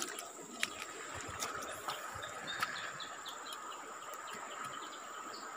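Insects droning steadily in two high, even tones, with short bird chirps in the middle and a few sharp clicks early on.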